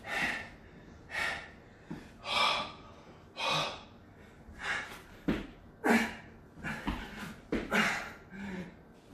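A man breathing hard mid-burpee, out of breath from the exertion: loud puffing exhales about once a second. Around the middle, a few dull thumps of hands and feet landing on an exercise mat.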